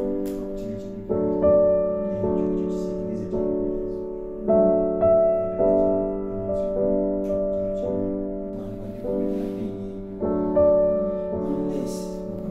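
Background piano music: slow chords, each struck and left to fade, a new chord every second or so.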